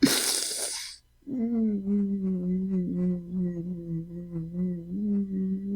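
A man's sharp, breathy gasp, then a long, low moan held at one pitch with a slight waver, as in distressed crying.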